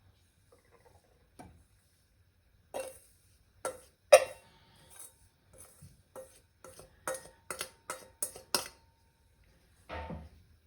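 Irregular clinks and taps of a utensil against crockery, about a dozen knocks, some with a brief ring, as crumble topping is spooned over the apples in a serving dish.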